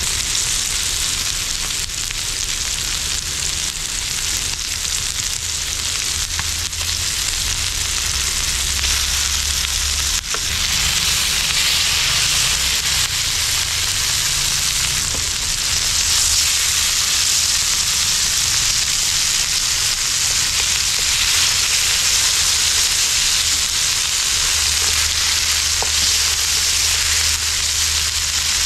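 Marinated chicken legs sizzling steadily as they pan-fry in hot oil.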